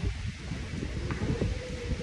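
Wind buffeting the phone's microphone, an uneven low rumble that comes and goes in gusts.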